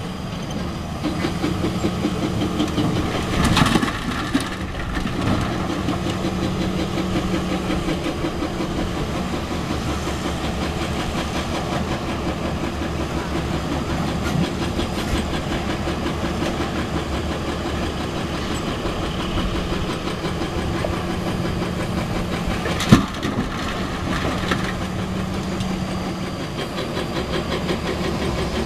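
Diesel engines of a Cat 320D excavator and a dump truck running steadily at low revs, with a knock a few seconds in and a sharp knock about three quarters of the way through.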